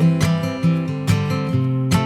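Background music: acoustic guitar strumming in a steady rhythm.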